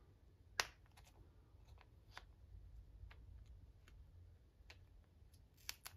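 Near silence: room tone with a low hum, a sharp click about half a second in and a few faint scattered ticks.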